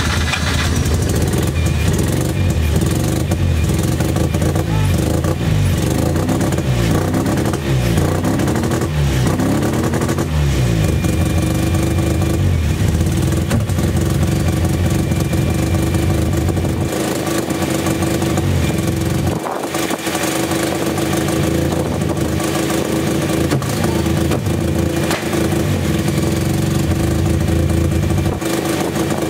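Mazda RX-8's freshly installed 13B two-rotor rotary engine running just after being started, its pitch sweeping up and down several times between about six and ten seconds in, then holding a steady run.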